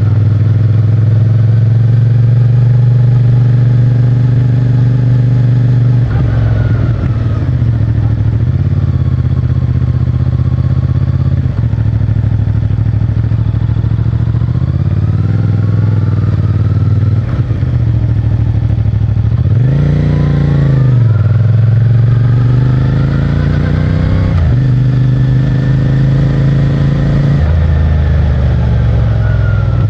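CFMOTO 450MT's parallel-twin engine running under way, first at a steady cruise, then with throttle changes through the gears: the pitch climbs and drops several times, with a quick rev up and down about 20 seconds in and a sudden drop at a gear change near 24 seconds. Picked up close by a microphone in a riding-pants pocket.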